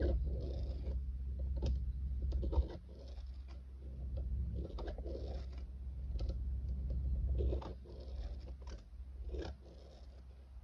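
A ballpoint pen scratches on paper as it drives a plastic spirograph wheel around its toothed ring, in repeated strokes about once a second, with small plastic clicks. A low hum underneath stops about three-quarters of the way in.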